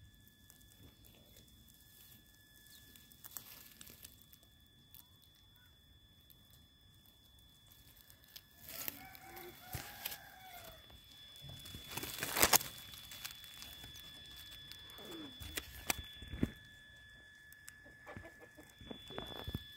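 One animal call about two seconds long near the middle, arching up and then down in pitch, then crackling and rustling of dry grass and twigs, the loudest a sharp crack a few seconds later.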